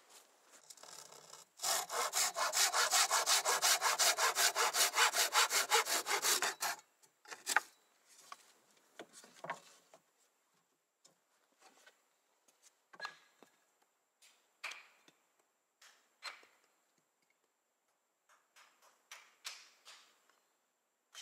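Hand saw cutting through a wooden board in a quick, steady run of strokes for about five seconds, starting a second and a half in. Scattered knocks and clacks of wood being handled follow.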